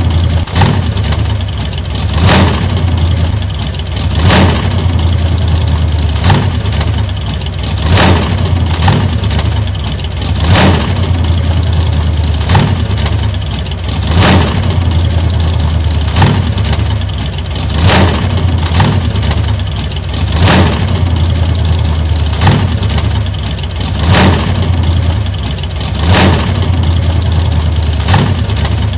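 Engine of a 1940s antique car running with a steady low note and a brief surge about every two seconds.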